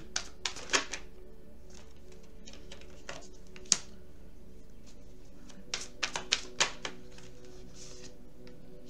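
Tarot cards being handled on a table: a run of sharp card snaps and taps, the loudest about four seconds in as a card is laid down, and another quick cluster of snaps a little before seven seconds as the deck is handled again.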